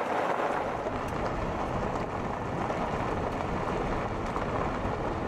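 Steady road and tyre noise from a car driving on a gravel road, with a deep rumble underneath.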